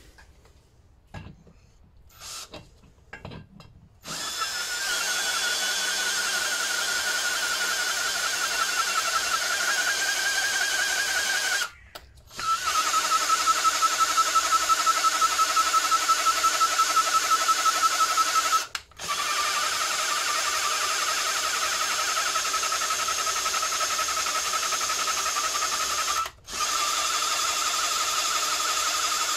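Ryobi cordless drill spinning a Lister D exhaust valve against its seat in lapping paste: a steady motor whine with one held pitch, stopping briefly three times. The sound changes as the valve goes round, which he takes as a sign that the seat is not yet even. A few light knocks come before the drill starts, about four seconds in.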